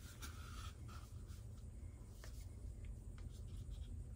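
Faint rubbing and a few light clicks of plastic cups and a paint bottle being handled, over a low steady hum.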